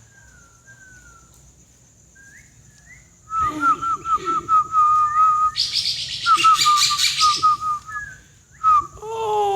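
A pet starling vocalising: faint whistled glides, then from about three seconds in a loud run of rapid whistled notes and clicks, broken by a harsh, raspy burst in the middle. Near the end comes a drawn-out call that sounds like a voice.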